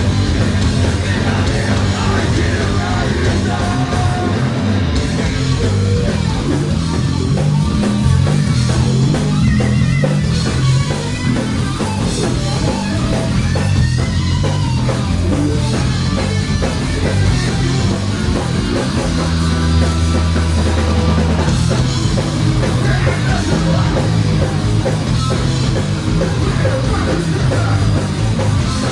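Loud heavy rock music with guitar and drums. About two-thirds of the way through, the beat drops out for a couple of seconds under a held low note, then comes back.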